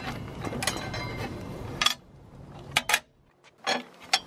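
Metal clinks and scraping as a 10-inch carbide-tipped table saw blade is worked off its arbor by hand: a dense clatter for about two seconds, then a few separate sharp clicks.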